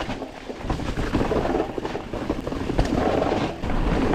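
Mountain bike rolling over a dirt trail: a steady, rough crackle and rumble of tyres on loose ground and rattling from the bike.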